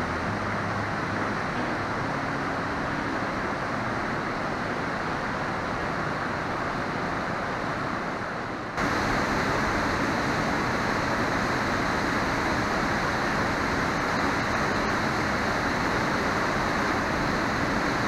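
A mountain-gorge waterfall rushing: a steady, dense wash of falling and churning whitewater. About nine seconds in it turns abruptly louder and brighter, as the falls plunging into their pool are heard from close by.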